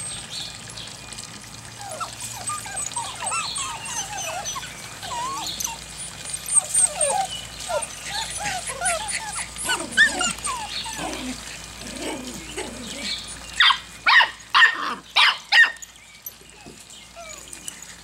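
A litter of young puppies whining and yipping in many short squeaks that bend up and down, then a dog barks about five times in quick succession near the end.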